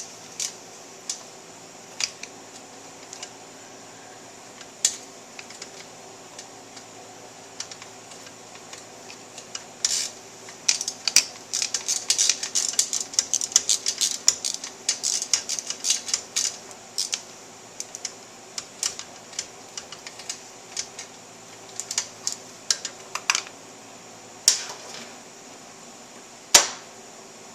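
Socket ratchet clicking in short runs, with scattered taps of metal tools, as bolts holding the reed cage assembly are worked loose. A dense run of rapid clicks comes in the middle, and a single sharp clank near the end.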